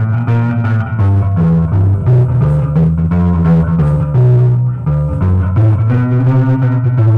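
Twelve-bar blues played on guitar over a bass line, with a steady beat.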